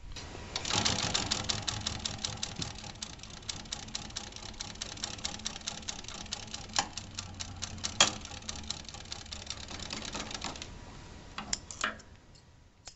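Consew 282R-1 industrial postbed needle-feed sewing machine stitching through a bag at a steady run: a rapid, even clatter that stops about ten and a half seconds in. A few separate clicks and knocks follow near the end as the work is handled.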